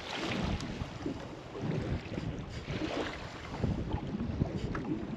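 Wind buffeting the microphone over open water, with the faint slap and rustle of water around a small fishing boat.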